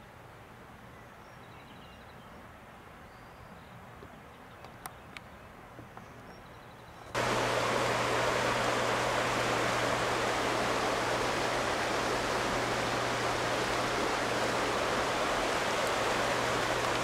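Quiet woods with faint bird chirps and a couple of small clicks. About seven seconds in, the sound switches suddenly to a loud, steady rush of creek water that runs on.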